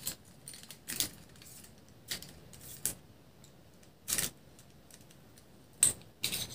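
Irregular light clicks and rattles, roughly one a second, from a pen-style telescopic fishing rod being handled: its thin rod sections are pushed back together and the little reel is fitted back into the pen body.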